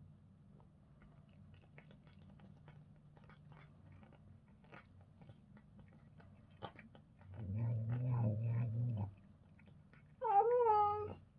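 Cats chewing raw fish, with many small wet clicks and smacks. Partway through comes a low cat growl of under two seconds, then near the end a short, louder, wavering cat yowl.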